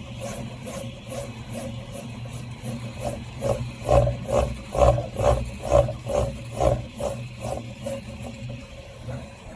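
Prusa i3 MK3S 3D printer's stepper motors whining as they drive it back and forth very fast, with a rattle on each stroke at about two strokes a second. The strokes grow loudest in the middle few seconds, then ease off.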